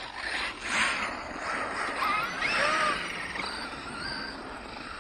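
Radio-controlled truck driving on a dirt track: rough tyre and dirt noise, with the motor's whine rising and falling in pitch about halfway through.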